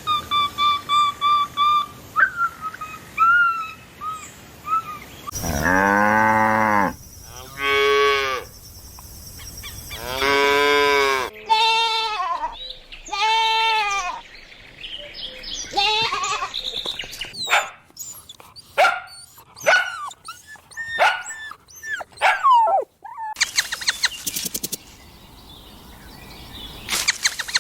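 A string of farm animal calls, including mooing and bleating livestock. It opens with high, rapidly repeated cheeps, followed by several long calls that rise and fall in pitch, and later a busy run of short clicks and chirps.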